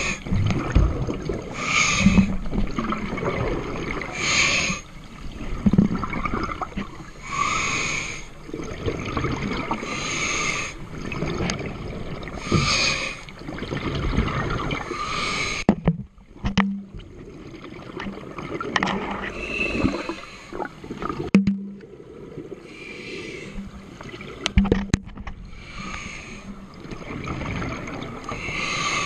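Scuba diver breathing underwater through a regulator: hissing breaths and gurgling bursts of exhaust bubbles repeating every two to three seconds, with a few sharp clicks.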